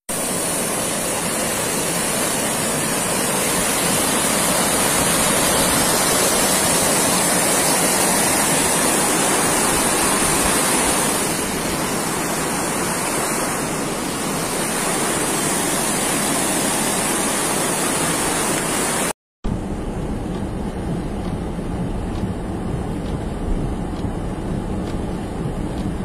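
Muddy floodwater rushing and pouring down a street, a loud steady noise of running water. After a sudden cut near the end, a lower, duller rumble from inside a car driving along the flooded road.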